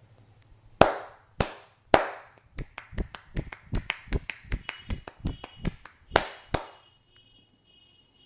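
Hands slapping on the body in a percussive massage. Three loud slaps come first, then a quick run of lighter strikes at about six a second, then two more loud slaps.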